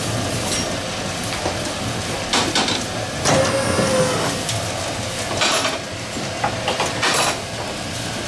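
Irregular knocking and clattering over a steady low hum, with the loudest knocks a little past two seconds in and again near the end.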